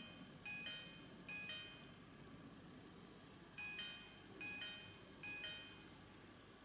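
Electronic two-note chime sounding three times in quick succession, then after a pause of about two seconds three times more; each chime is bright and high, starting sharply and dying away.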